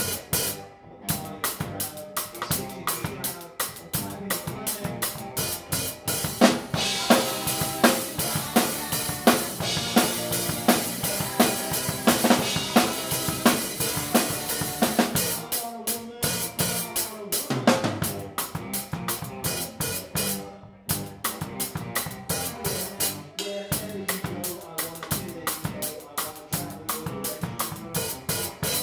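Live rock band playing, with the drum kit closest and loudest: kick, snare and cymbals driving a steady beat over electric guitar. The cymbals wash heavily for a few seconds about a quarter of the way in, and the band drops out for an instant a few times.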